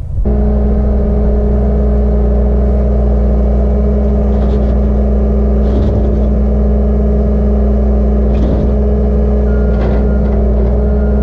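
An engine running steadily at a constant speed, with a few faint knocks over it.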